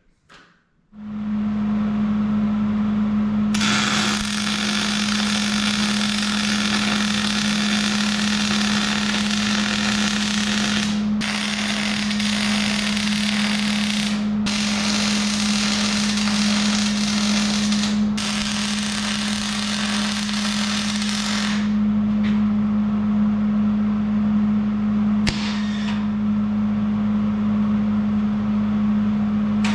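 Wire-feed (MIG) welder arc crackling and sizzling in several runs of a few seconds each, with short breaks between them and one brief burst near the end, as the steel truss pieces are welded together. A steady low hum runs beneath.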